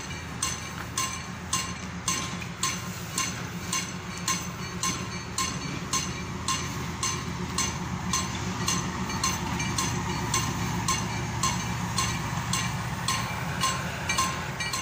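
Level-crossing warning bell ringing at a steady pace of about two strikes a second, over the low rumble of a train passing the crossing.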